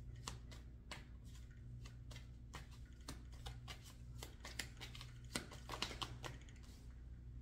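Tarot cards being shuffled and handled: a run of irregular light clicks and flicks over a faint steady low hum.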